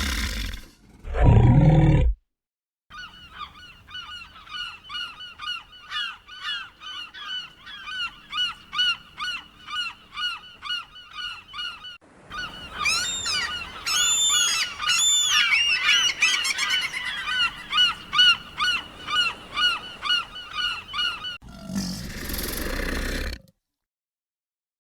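A short rough roar, then a long run of repeated honking bird calls, about two a second, which swells about halfway through into a louder chorus of several birds calling over one another. A brief rough, noisy burst comes near the end.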